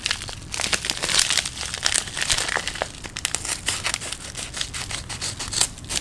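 White plastic shipping mailers crinkling and rustling as they are handled, an irregular run of crackles throughout.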